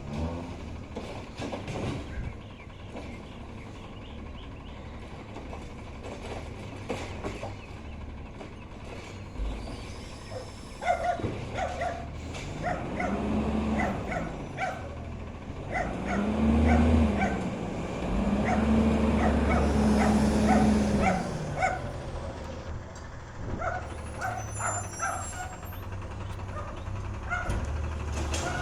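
A transit vehicle making an odd, rapidly repeated squeaking chirp over its running engine, with the engine's pitch rising and falling three times midway.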